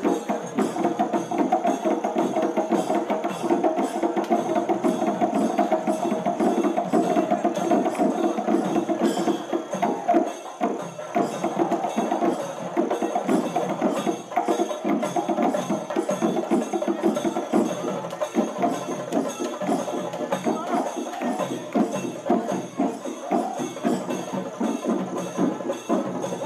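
Fast, dense traditional padayani drumming, many strokes a second, keeping up steadily without a break.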